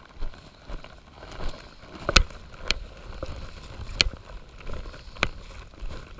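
Footsteps of a hiker climbing a wet granite trail: about four sharp taps at uneven spacing over a soft rustling.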